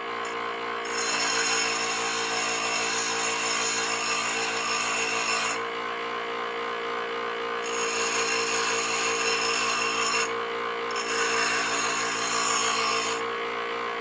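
Wet wheel grinder running with a steady motor hum while a steel planer knife is pressed against its spinning stone, giving a hissing grind in three passes, with short breaks a little past the middle and again about three-quarters in. The knife is being ground down at a high spot to make its edge straight.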